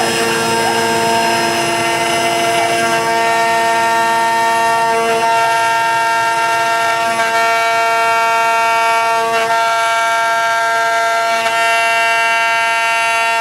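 CNC router spindle running with a steady high, multi-toned whine while its cutter carves a banjolele neck from hard laminated Karri wood.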